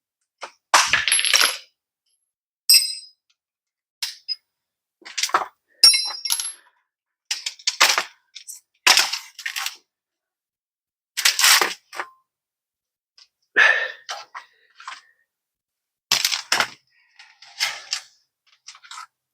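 Metal hand tools clinking and clattering against each other in a dozen short separate bursts, several with a brief bright metallic ring.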